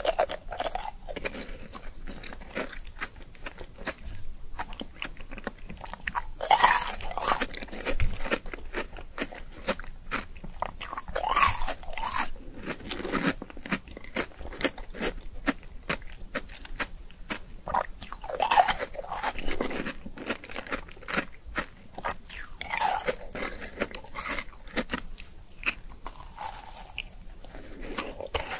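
Close-miked eating: crunchy bites and wet chewing of sugary pink sweets, with about four louder crunching bites spread through. A macaron is bitten near the end.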